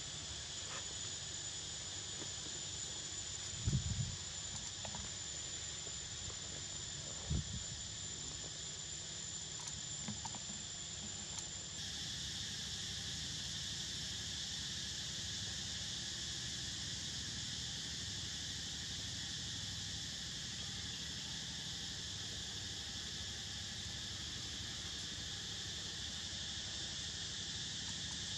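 Steady high chorus of forest insects, with a thin, high, steady tone in it that stops about halfway through. Two brief dull low thumps stand out, about four and seven seconds in.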